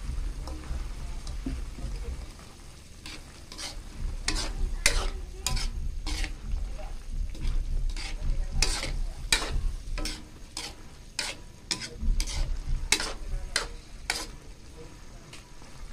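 Metal spatula scraping and knocking against a wok, a quick run of irregular stirring strokes that starts about three seconds in and stops near the end, as tofu cubes are mixed into pork and carrots in bubbling soy sauce broth.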